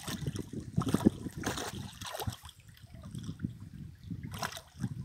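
Shallow water lapping and splashing at the shoreline, with two brief louder splashes, one about a second and a half in and one near the end, as the carp on the stringer stirs at the surface.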